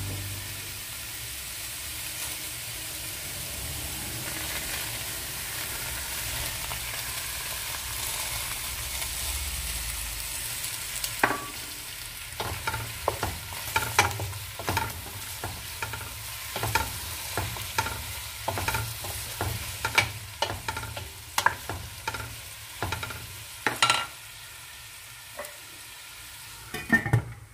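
Chopped onions frying in oil in a stainless steel pot, a steady sizzle. From about eleven seconds in, a wooden spatula stirs them, with repeated clacks and scrapes against the pot.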